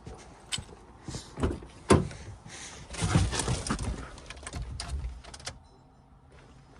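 A string of knocks and clicks from a car door and keys being handled, the sharpest knock about two seconds in, with rustling and small clicks after it.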